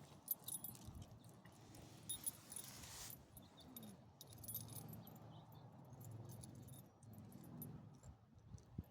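Faint metallic jingling and light clicking, with a low steady hum beneath.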